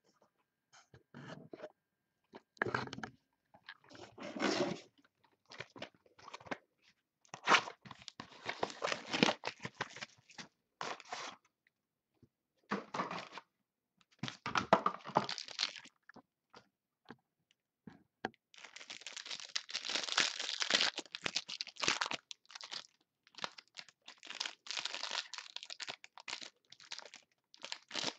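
Plastic wrapping on a box of trading cards being torn and crumpled in stop-start bursts with short pauses between them, turning into steady crinkling about two-thirds of the way through.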